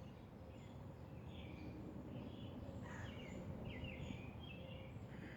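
Songbirds chirping faintly in short repeated phrases over a low steady outdoor rumble.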